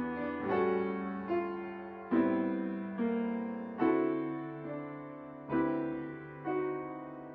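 Background piano music: slow, gentle chords struck every second or so, each one ringing and fading before the next.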